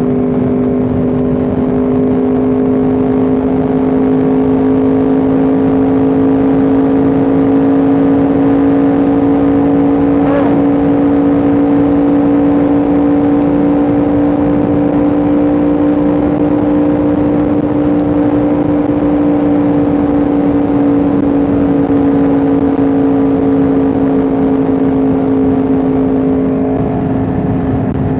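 Yamaha R1M's crossplane inline-four engine running at a steady cruise, its pitch rising a little and then easing back down.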